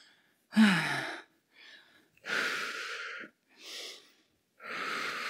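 A woman breathing hard to recover from an intense exercise: a sigh that falls in pitch about half a second in, then several long breaths through the mouth.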